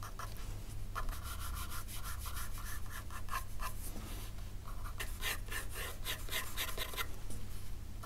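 Graphite pencil scratching across drawing paper in quick, repeated shading strokes, several a second, growing louder and denser about halfway through.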